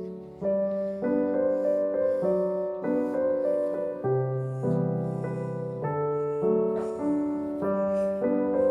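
Background piano music: a slow melody with a new note or chord about every half second.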